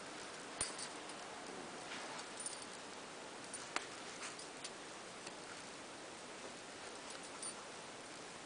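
Faint, irregular small clicks and soft rustling over a steady hiss as a small Maltese puppy moves about on a fleece-lined dog bed.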